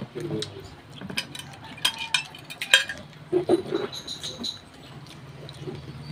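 Scattered clinks and clicks of plates and utensils as food is picked from the dishes by hand and eaten. A brief voice sound comes a little after three seconds, and a low steady hum comes in near the end.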